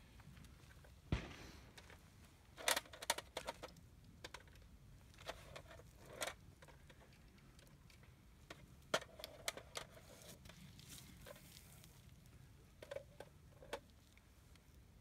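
A single distant shotgun shot about a second in. After it come scattered light clicks and metallic rattles, in small clusters.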